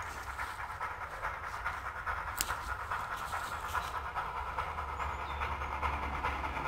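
Ol49 steam locomotive approaching, its exhaust chuffing in a fast, even beat, with a low rumble growing louder in the second half. A single sharp click about two and a half seconds in.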